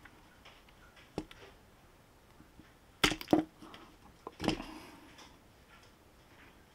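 Sharp knocks and clicks of hard plastic being handled, as a coated lure is unhooked and lifted off a 3D-printed plastic lure turner. One light knock about a second in, a loud pair about three seconds in and another knock near four and a half seconds.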